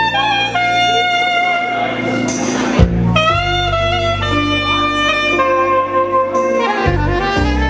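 Soprano saxophone playing a slow melody of held notes, some sliding up into pitch, over low sustained bass notes that change about three and seven seconds in. A short burst of noise comes about two and a half seconds in.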